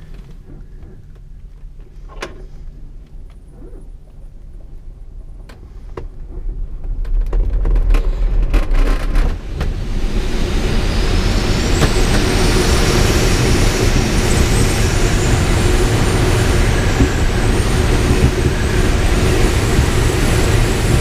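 ASK 13 glider on a winch launch. It is fairly quiet with a few clicks at first; from about six seconds the wheel rumbles over grass as it speeds up, and from about ten seconds there is a loud, steady rush of air with a thin high whistle as it climbs steeply.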